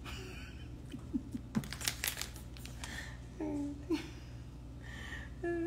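Scattered light clicks and crinkling over a steady low hum, with a short vocal murmur about three and a half seconds in.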